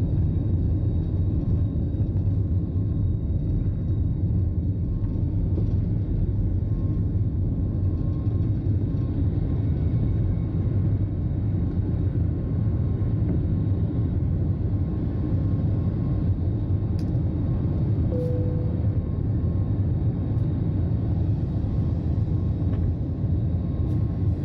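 Steady low rumble of a running vehicle, with a couple of faint ticks.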